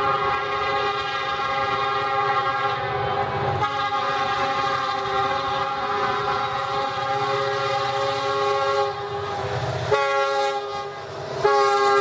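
Diesel locomotive air horn on a GE Dash 9-40CW sounding a multi-note chord in long and short blasts: two long blasts, a short one near the end, then a last long blast that slides slightly lower in pitch as the engine draws level. This is the standard grade-crossing signal. The locomotive's diesel engine rumbles underneath.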